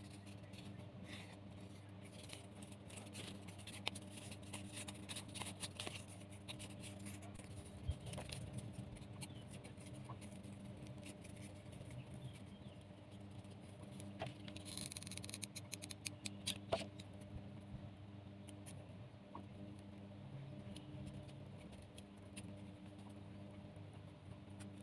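Faint rustling, scratching and small clicks of cardboard and jute twine being handled and wound by hand, over a steady low hum.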